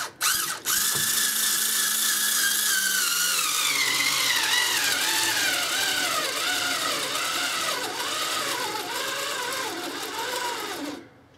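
Power Advantage cordless screwdriver's motor and gearbox whining as it drives a 1 3/4-inch wood screw into a wooden board. Its pitch sinks and wavers as it bogs down under load, and it stops shortly before the end: the gutless 200 RPM driver stalls with the screw only partly in.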